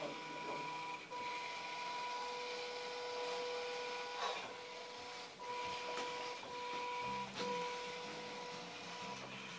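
A small wire-following robot mower's electric drive motors whine steadily in a two-note tone. The whine cuts out and restarts briefly several times as the robot steers along its boundary wire.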